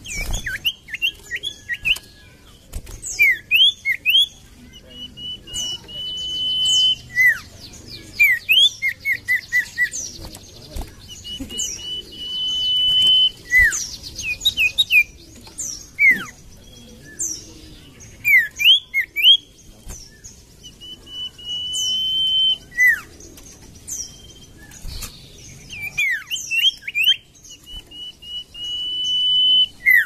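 Common iora (cipoh) singing: long, level, high whistles held about a second, repeated about five times, alternating with quick down-slurred notes and fast runs of short chips.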